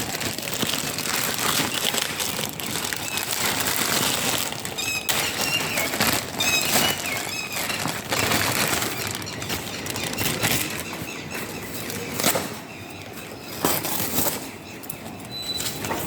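Packaging rustling and crinkling with many small clicks as a delivery parcel is handled and opened. A few short high chirps come in about a third of the way through.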